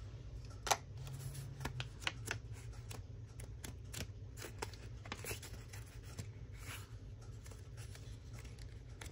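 Paper rustling and flicking as a stack of painted paper scraps is leafed through by hand, in irregular soft clicks and rustles over a low steady hum.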